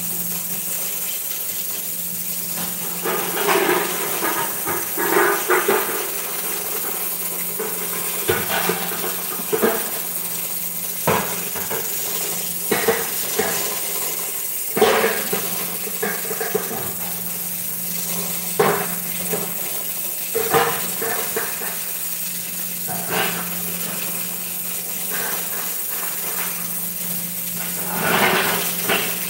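Dishes and kitchen utensils clattering and knocking at intervals as someone works at a counter, over a steady hiss and a low hum.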